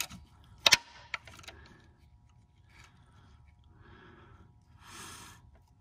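A single sharp metallic click a little under a second in, then a fainter tick, then a few soft handling noises: a tool or part knocking against metal while the Valvetronic actuator is being worked free of the cylinder head.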